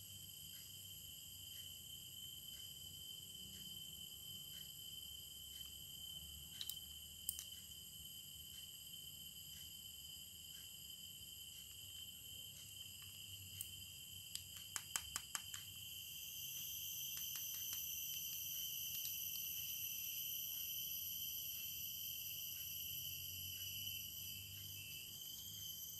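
Faint, steady high-pitched chirring of crickets or other insects throughout. A few sharp clicks sound from a white baitcasting reel being handled, with a quick run of louder clicks about halfway through.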